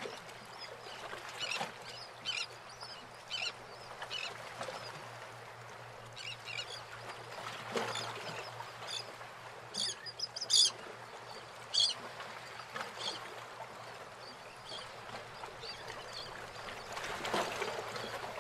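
Short bird calls repeating irregularly, a second or two apart, over a steady low hum and hiss; the loudest calls come about ten and twelve seconds in.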